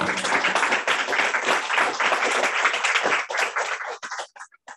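Audience applauding: many hands clapping in a dense patter that thins to a few last claps and stops about four seconds in.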